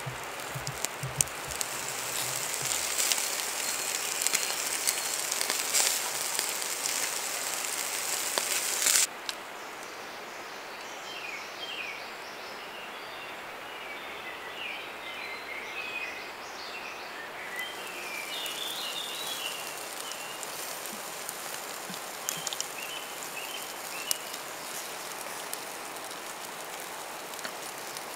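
Food sizzling with small crackles over a campfire, with birds chirping. The sizzle stops abruptly about nine seconds in, leaving birdsong over a faint hiss, and a lighter sizzle returns about halfway through.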